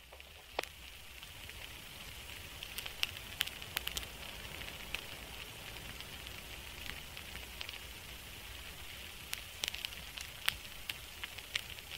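Steady hiss with irregular sharp crackles and pops scattered through it, over a low hum, the kind of crackling ambience track laid over a subliminal.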